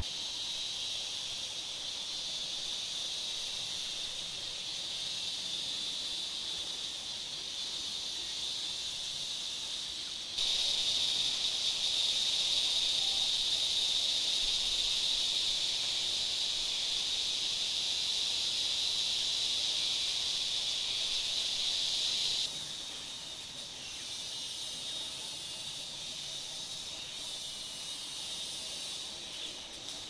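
A steady, high, hissing drone of insects in the forest. It gets much louder suddenly about a third of the way in and drops back just as suddenly about three-quarters through.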